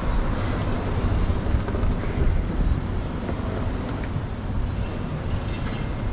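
Car driving along city streets: steady road and traffic noise, strongest in the low end, with no distinct events.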